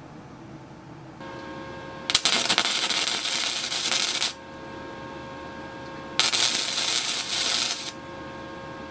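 Wire-feed arc welding of steel: two welds, each a dense crackling sizzle lasting about two seconds, with a pause between them. A steady hum runs underneath from about a second in.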